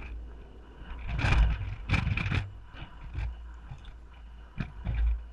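Low wind rumble on the microphone with scattered knocks and rustles of handling noise, the loudest about a second or two in.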